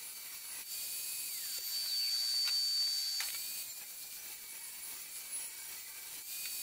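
Evolution Fury 5S table saw running while a slatted wooden shelf is fed through it to be trimmed to width. Its high whine drops in pitch as the blade takes the cut about a second in, climbs back about three seconds in, and drops again near the end.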